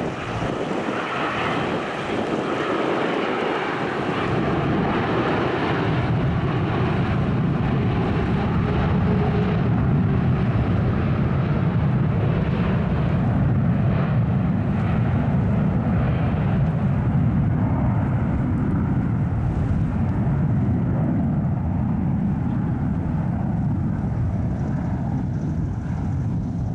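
Twin-engine Boeing 787 Dreamliner on final approach with its landing gear down: a steady jet engine rumble that swells about five seconds in and holds.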